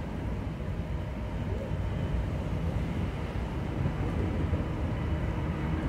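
Diesel locomotives at the head of a Norfolk Southern manifest freight train approaching, their low engine rumble growing slowly louder.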